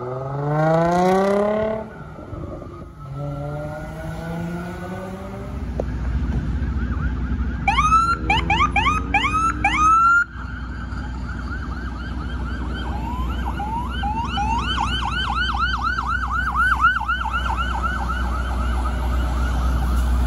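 Emergency-vehicle sirens over traffic: a fire truck's siren rising through the first few seconds, then fast electronic yelp sirens from an ambulance and a police car. A steady engine rumble runs beneath from about six seconds in. About ten seconds in, the sound cuts abruptly; from about thirteen seconds a steady high siren tone mixes with fast yelping sweeps.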